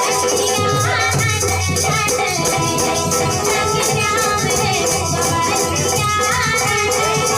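Bundeli folk music playing, with a quick, steady rattling percussion beat over pitched melody.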